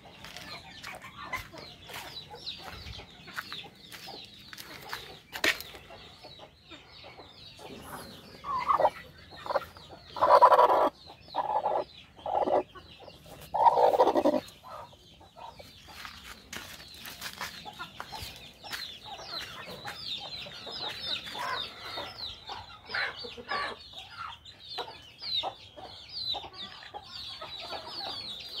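Backyard chickens: a busy chatter of high, short peeps and clucks throughout, broken in the middle by about five loud hen calls over several seconds.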